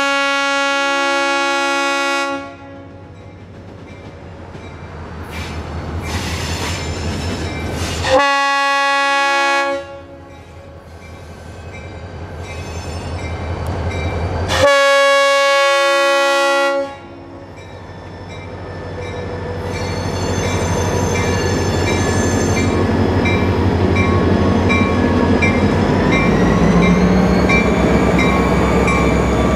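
Diesel freight locomotive's horn sounding three chords for a grade crossing as the train approaches, with a crossing bell ringing steadily. After the last blast, the engine and the rumble of the train grow louder and stay loud as it draws close.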